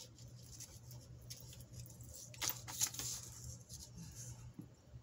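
Costume jewelry clicking as it is handled and pulled apart from a tangle: a few light metallic clicks, clustered about two and a half to three seconds in.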